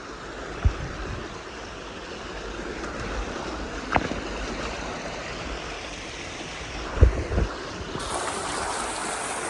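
Rushing water of a waterfall stream, a steady hiss, with a few dull knocks on the microphone.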